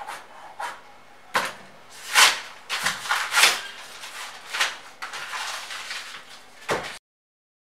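Paper being handled and crumpled at a desk: a string of irregular crinkling rustles with a couple of sharp clicks, cutting off abruptly near the end.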